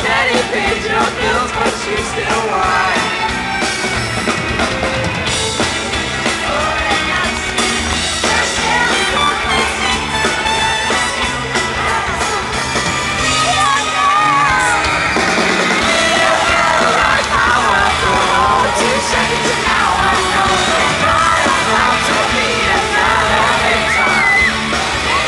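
Live pop-rock band playing a song, with singing and fans in the audience yelling and screaming over it, recorded from within the crowd.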